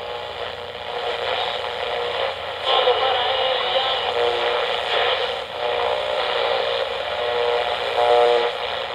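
Train sound effect, a locomotive running steadily, on an old, narrow-sounding radio broadcast recording.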